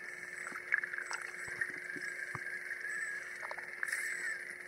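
BlueROV2 underwater vehicle's thrusters running, heard through water as a steady wavering whine, with a constant low hum and scattered faint clicks while the vehicle makes small repositioning moves.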